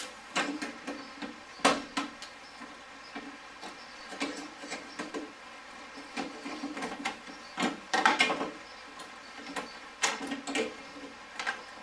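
Irregular clicks, taps and rattles of pliers and small metal and plastic parts as a latch release cable is worked free, with sharper knocks about two seconds and eight seconds in.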